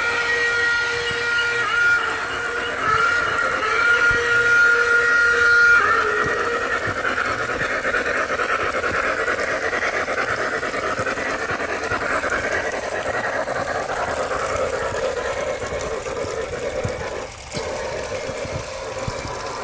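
Onboard sound system of a garden-railway model steam locomotive: a steam whistle sounds, broken briefly twice, then held as one long blast until about six seconds in. After that comes a steady steam hiss and chuffing as the locomotive runs.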